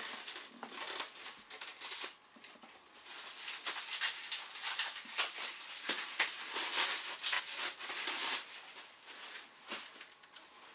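Plastic cling-film wrapping being peeled off a table part and crumpled in the hands: an irregular crackling rustle. It pauses about two seconds in, starts again and dies down near the end.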